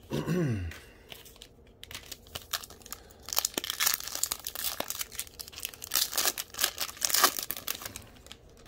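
A 2020 Donruss football card pack's foil wrapper being torn open and crinkled by hand: a run of sharp crackles and rips, thickest in the middle and near the end.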